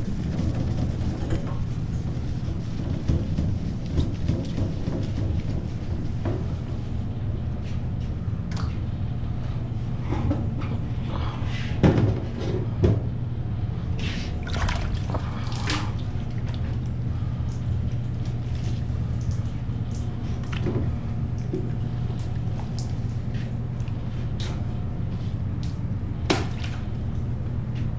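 Water dripping and trickling during hand wet sanding of a painted motorcycle tank's clear coat, with scattered short splashing and rubbing noises, the loudest about twelve seconds in. A steady low hum runs underneath.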